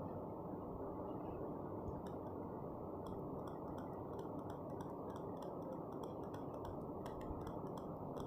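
Green chilli, ginger and garlic paste frying in oil in an aluminium pressure cooker while a metal spatula stirs and scrapes the pan: light, quick clicks and scrapes from about two seconds in, over a steady low hiss.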